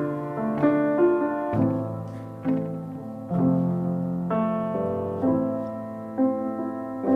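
Slow solo piano music: single notes and chords struck about once a second, each fading before the next.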